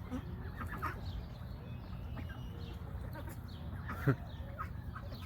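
Poultry calling now and then, with one loud, short squawk about four seconds in, over a steady low rumble.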